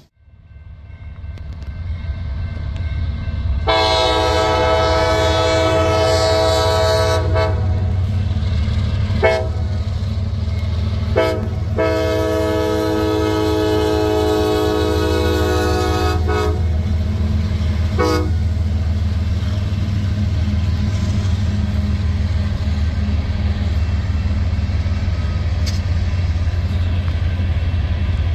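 CSX diesel freight locomotives passing with their multi-note air horn sounding a long blast, two short toots, a second long blast and a final short toot, the pattern blown for a grade crossing. Under it the steady low rumble of the locomotives' engines and the train runs throughout, fading in over the first few seconds.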